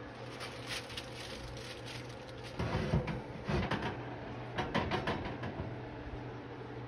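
Kitchen clatter: a run of knocks and rattles from cookware being handled, loudest from about two and a half to five and a half seconds in, over a steady low hum.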